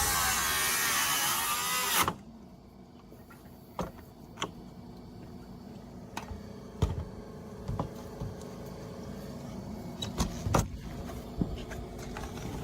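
Power saw running through timber, cutting off abruptly about two seconds in as the cut on the overhanging roof-deck edge finishes. After that come scattered light knocks and taps of wood and tools being handled.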